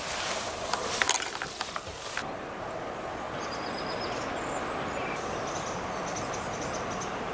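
Footsteps and rustling as someone pushes through ferns and scrub, with crackling of brushed vegetation. About two seconds in this gives way abruptly to a steady outdoor hiss with faint, short, high bird chirps.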